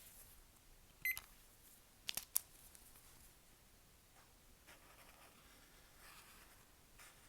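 A short electronic beep about a second in, then two sharp clicks, followed by faint scratchy strokes of a Posca paint marker on paper.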